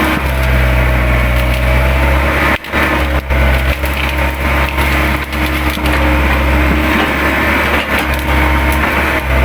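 Hydraulic excavator engine running steadily under load while the machine tears through brush, with branches and woody stems cracking and snapping.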